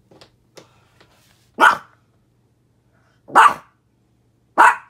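A pet dog barks three times, short sharp barks about a second and a half apart, after a few faint ticks.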